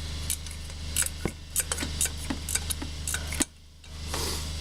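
Hand ratchet clicking in short strokes as a 12 mm intake manifold bolt is loosened, a quick run of sharp ticks about three a second.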